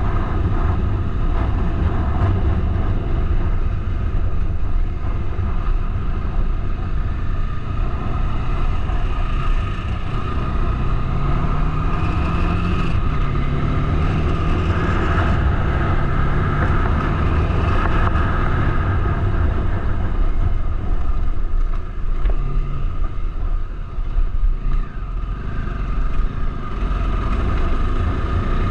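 Bajaj Dominar 400 motorcycle's single-cylinder engine running on the move, its pitch rising and falling as the throttle changes, over a steady low rumble.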